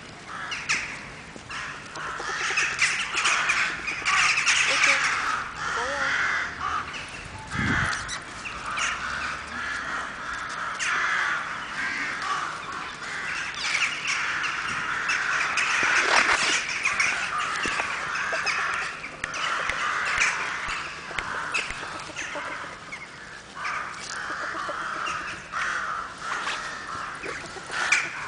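Many birds calling at once, a dense, unbroken chorus of short calls, with a low thump about eight seconds in.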